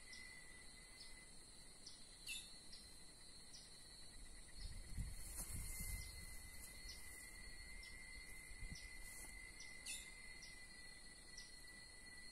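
Faint outdoor insect chorus: steady, high, even trilling, with a short chirp repeating about every half second. About five seconds in there is a brief low rumble.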